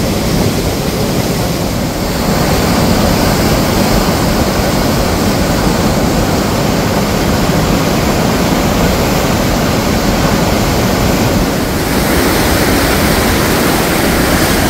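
Fast-flowing floodwater of a swollen river rushing, a loud steady wash of noise that grows a little louder about two seconds in.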